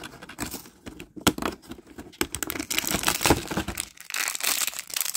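Cardboard door of a toy collection box being torn open and a foil blind-bag wrapper crinkled in the hands: a run of irregular crackles and rustles, busiest about two to four seconds in.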